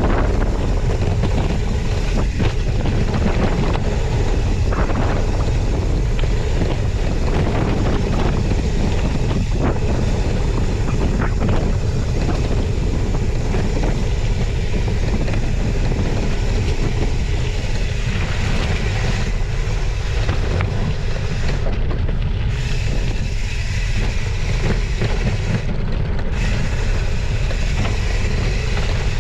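Wind rushing over the microphone on a fast gravel-bike descent, over the steady rumble of 40 mm Maxxis tyres rolling on a dirt-and-gravel trail. Scattered knocks and rattles from the Trek Checkpoint bike as it hits bumps.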